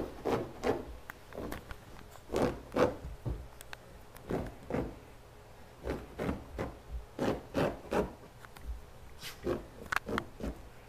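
Irregular short rubbing and scraping noises close to the microphone, about one or two a second, against wood.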